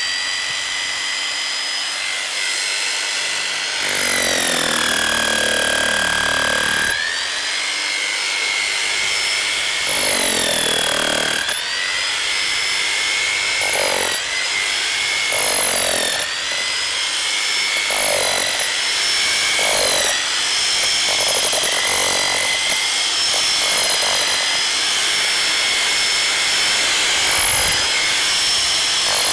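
Bosch GSH 5 E electric demolition hammer chiselling into concrete. Its motor runs with a steady whine that sags in pitch each time the chisel is pressed in and hammers. The hammering comes in repeated spells, first about four seconds in, then every couple of seconds.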